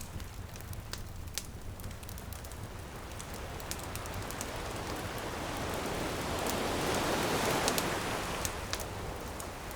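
Campfire crackling and popping over the low rumble of surf. A wave washes in, building over several seconds to a peak about seven to eight seconds in, then drawing back.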